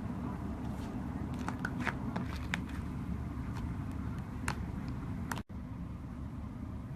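Slime being squeezed and stretched by hand, giving scattered small pops and clicks over a steady low rumble. The sound cuts out for an instant about five and a half seconds in.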